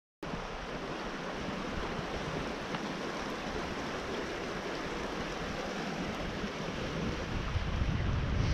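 Fast-flowing stream rushing over rocks, a steady rush of water that starts abruptly just after the beginning, with wind buffeting the microphone growing stronger near the end.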